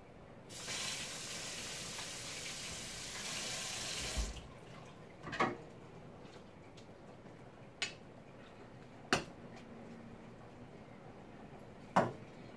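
Kitchen tap running in a steady stream for about four seconds, then shut off. Afterwards come four sharp metal clinks of a ladle against a cooking pot.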